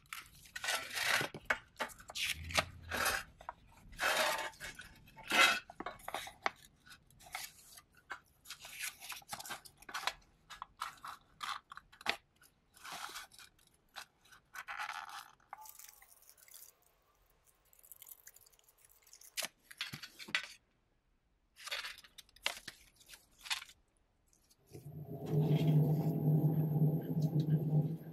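Small tin box being taken apart by hand: a run of irregular scrapes, clicks and crunches of a tool and fingers working on thin sheet-metal, thinning out after about 16 s. About 25 s in, a steady mechanical hum starts up as the sandblast cabinet is switched on.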